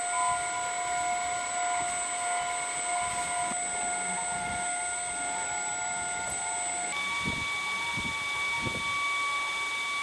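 Maircle cordless stick vacuum running: a steady high motor whine over a rushing hiss of suction. About seven seconds in, the whine shifts abruptly to a different pitch.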